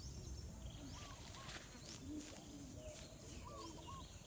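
Faint forest ambience: a bird gives a short two-note call twice, about a second in and again near the end. Soft scattered crackles come and go underneath.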